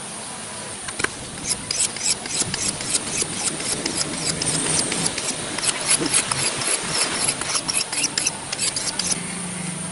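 Hand sharpening of a hatchet's steel edge: a quick, irregular series of rasping scrapes, several a second, for about eight seconds.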